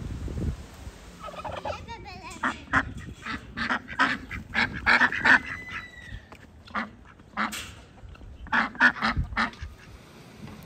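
Ducks quacking, many short quacks in quick runs, with a pause in the middle.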